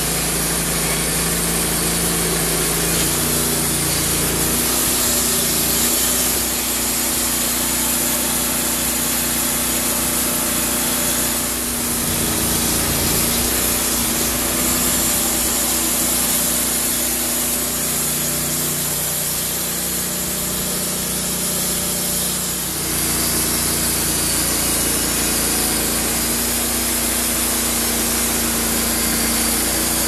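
Wood-Mizer LT15 portable bandsaw mill cutting through a log, its gas engine running under load beneath the steady hiss of the band blade in the wood. The engine note shifts a few seconds in and again about three-quarters of the way through.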